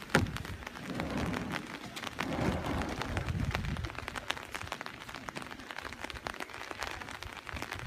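Plastic kayak hull scraping and sliding over a wet concrete driveway as it is shoved along, mixed with footsteps slapping on the wet pavement. The scraping is loudest in the first few seconds and eases off after about four seconds, when the kayak stops.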